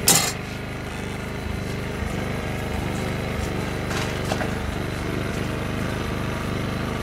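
A small engine running steadily at an even speed, with a sharp knock right at the start and a few light clinks of a plastic spoon in the pot about halfway through.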